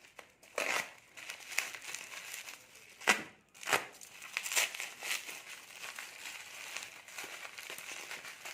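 Plastic parcel packaging crinkling and rustling as it is handled and unwrapped by hand, with a few sharper crackles in the first half.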